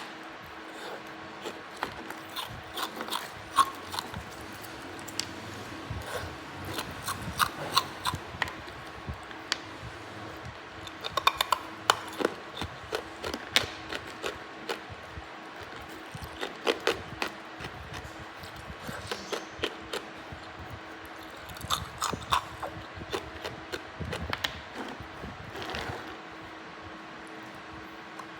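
Hard ice being bitten and chewed, close to the microphone: irregular clusters of sharp crunches and cracks, over a faint steady hum.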